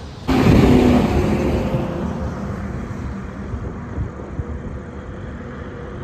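A vehicle passing close by on a highway. The sound cuts in loud about a third of a second in, stays loudest for the first second or two, then eases into steady road noise.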